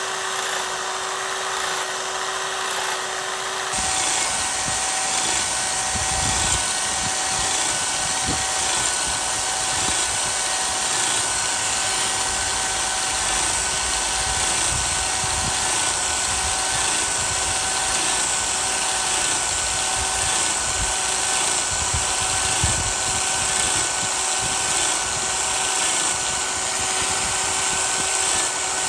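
Biax electric power scraper running steadily, its reciprocating blade cutting a crosshatch scrape pattern into the metal slide ways of a lathe compound. The sound gets louder and fuller about four seconds in.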